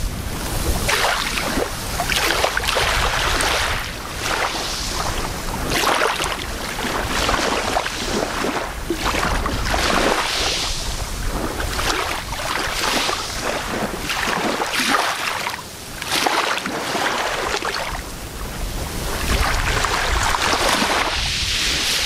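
Small waves lapping and washing onto a sandy beach in calm, shallow water, a soft wash that swells and ebbs every second or two, with wind rumbling on the microphone.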